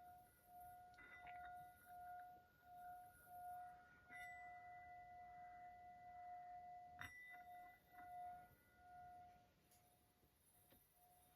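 A faint singing bowl ringing one steady tone that swells and fades about once a second. It is struck again a few times, about a second, four seconds and seven seconds in.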